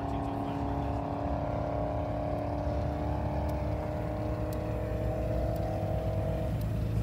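Car engines idling close by: a steady low exhaust rumble with a steady whine over it that drops away about six and a half seconds in.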